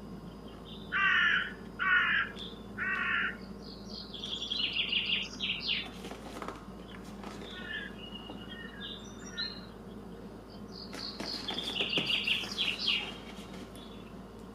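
Bird calls: three loud harsh caws about a second apart near the start, then two bouts of higher twittering calls.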